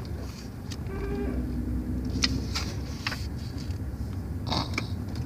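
Steady low rumble of a car's cabin on the move, with a few short crisp rustles and clicks as the paper pages of a picture book are handled and turned.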